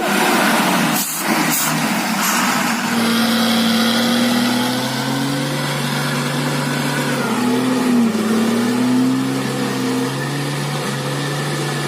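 A 4x4 truck's engine running under load, its pitch rising and falling gently, over a steady hiss of noise. There is a brief dip about a second in.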